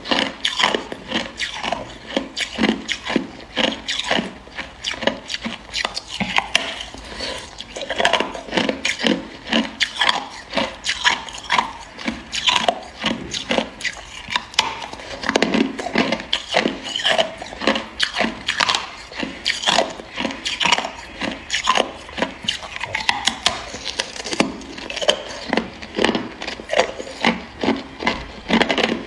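Hard clear ice being bitten and chewed: a continuous run of sharp crunches and cracks, a few a second.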